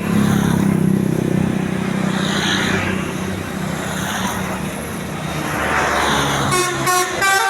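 A bus engine running amid road noise. About six and a half seconds in, a Basuri telolet multi-tone horn starts up, playing a quick run of notes that step up and down.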